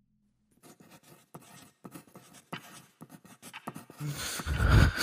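Pen scratching on paper in faint, irregular strokes. About four seconds in, a much louder breathy sound begins.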